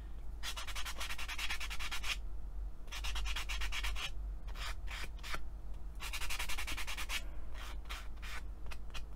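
A fine foam sanding pad rubbing over the edges of baked Cernit Pearl polymer clay in quick back-and-forth strokes, in several spells with short pauses between, taking off burrs and rough edges.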